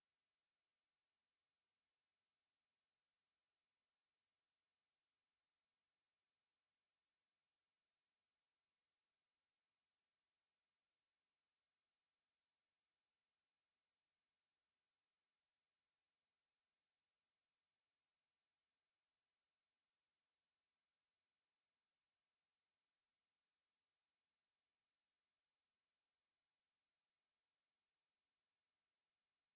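A steady, high-pitched 6613 Hz sine-wave test tone: one pure pitch held without change.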